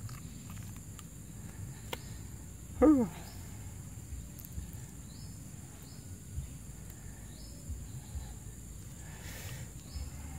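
Outdoor insect chorus: a steady high buzz with short high chirps repeating about once a second. About three seconds in, a brief, loud vocal exclamation falls in pitch.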